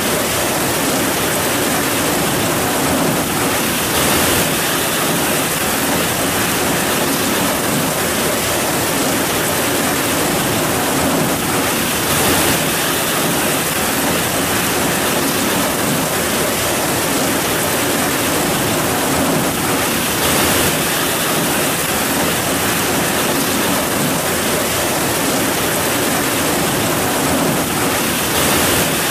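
Heavy rain falling steadily: a dense, even hiss, with a brief slightly louder swell about every eight seconds.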